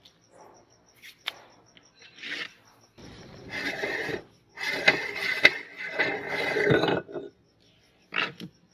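Metal meat grinder being taken apart: gritty scraping and rubbing as its front retaining ring and cutting plate are worked loose over ground cookie crumbs. The sound comes in several bursts over about four seconds, with a few faint clicks and rustles before and one short scrape near the end.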